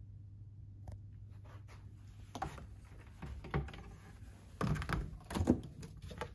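Minibar cabinet and fridge door opened by hand: a few light knocks and clicks, then louder thunks about five seconds in as the fridge door is pulled open.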